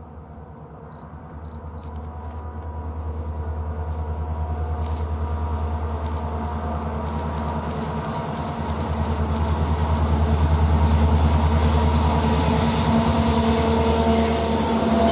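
Diesel locomotive approaching and coming alongside, its engine's low, pulsing rumble growing steadily louder over the first ten seconds or so.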